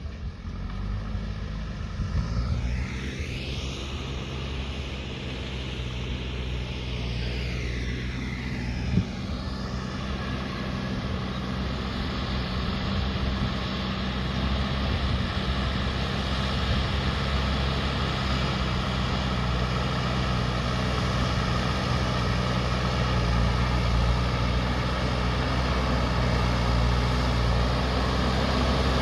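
Diesel engine of a JCB backhoe loader running steadily under work, growing slightly louder through the stretch, with a sharp knock about nine seconds in.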